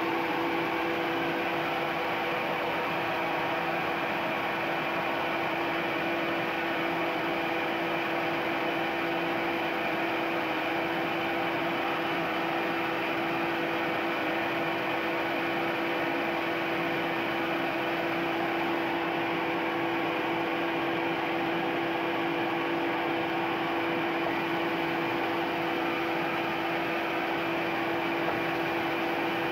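Ryobi RBDS4601G belt and disc sander running steadily just after start-up, a steady motor hum with belt noise, with an oak block lying on the moving belt. A light knock near the end as a second block is set on top to weight it.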